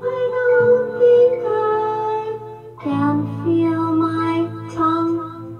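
A song: a high voice singing held notes in two phrases over sustained backing chords, with a short break about three seconds in.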